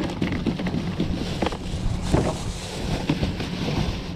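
Wind buffeting the microphone, a gusty low rumble, with scattered small clicks and knocks.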